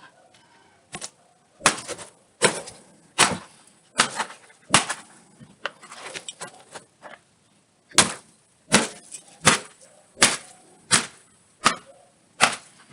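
Sledgehammer blows striking an iPad: about a dozen sharp hits at a steady pace of roughly one every 0.7 seconds, with a pause of about two seconds midway.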